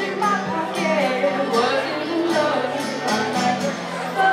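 Women singing live to a strummed acoustic guitar.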